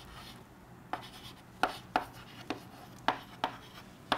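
Chalk writing on a chalkboard: short, separate taps and scrapes of the chalk, about seven strokes, as a word is written out.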